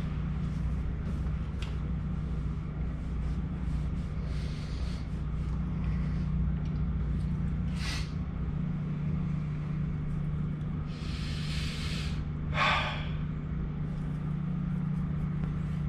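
A steady low hum with a deeper rumble under it that fades about halfway through. Over it come a few short hissing rushes, the longest about eleven seconds in.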